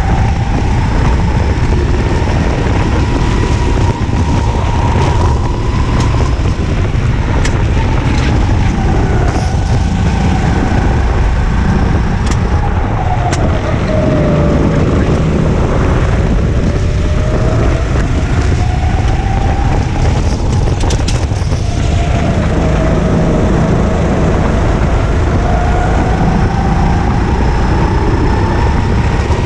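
Racing kart engine recorded onboard, its note rising as it accelerates and falling as it slows for corners, several times over, above heavy wind and chassis rumble. A few sharp clicks or knocks in the middle.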